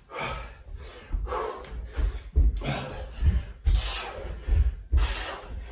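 Dull thuds of feet landing on a carpeted floor during jump lunges, with hard, heavy breathing: a forceful exhale about once a second.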